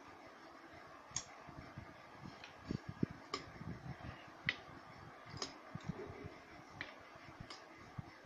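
A metal spoon clicking against a drinking glass and a plastic ice-cube tray as water is scooped and spooned into the tray's compartments: about six sharp, light clicks at uneven intervals, with soft handling bumps between them.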